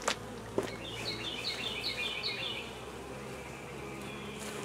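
Honey bees buzzing in a steady hum around an open hive box. A few handling clicks come right at the start, and a bird sings a short run of repeated high chirps about a second in.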